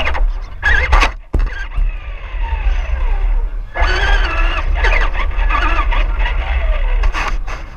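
Low rumble and rattle of an RC car driving over pavement, picked up by a camera mounted on the car, with crowd voices and gliding tones around it.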